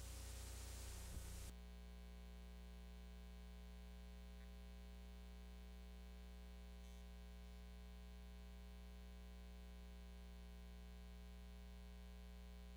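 Faint hiss and hum of blank videotape. The hiss cuts off abruptly about a second and a half in, leaving only a faint steady electrical hum.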